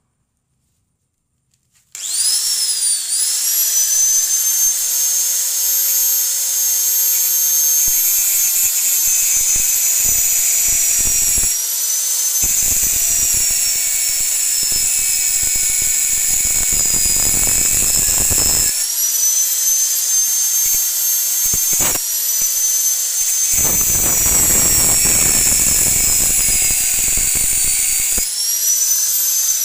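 Electric angle grinder starting up about two seconds in and running with a high-pitched whine. It grinds into the work in two long spells, its pitch sagging under the load and rising again when it lifts off.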